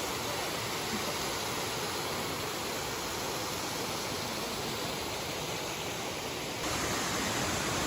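Steady rush of a creek waterfall, an even wash of noise that steps up a little in loudness about two-thirds of the way through.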